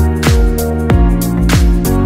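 Instrumental background music with a steady beat: a deep kick drum on each beat, about three in two seconds, with bright cymbal hits and sustained chords above.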